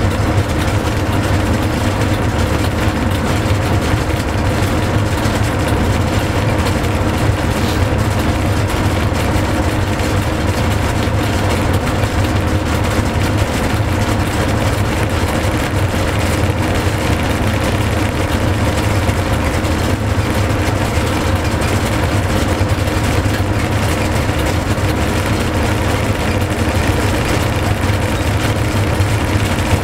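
A train running at steady speed, heard from inside its driver's cab: an even running noise with a strong low hum and a few steady tones that hold their pitch throughout.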